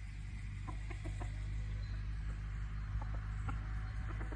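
Chickens clucking in short, scattered calls, over a steady low hum.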